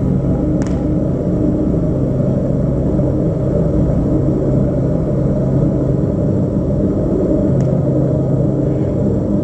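A low, steady droning rumble from the dance piece's music score, with held low tones that fall away about two seconds in and come back near the end. Two faint, brief clicks sound, one just after the start and one late.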